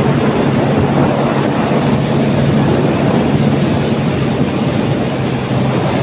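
Speedboat engine running steadily underway, a constant low drone, with the rush of water and wind along the moving hull.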